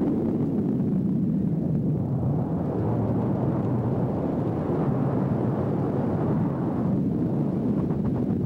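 Wind rushing over the camera's microphone during a parachute descent under an open canopy: a steady, deep rush with no break.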